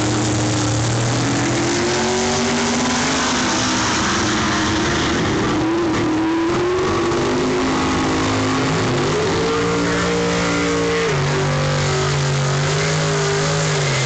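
Drag-race car engines running at full throttle down the strip, the pitch climbing and then stepping down at each gear change.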